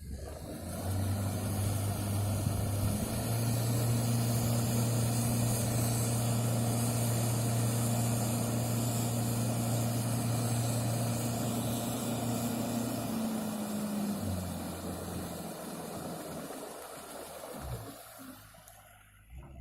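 Engine of a TROM all-terrain vehicle running steadily, its note stepping up a few seconds in and holding, then dropping about two-thirds of the way through and fading away near the end.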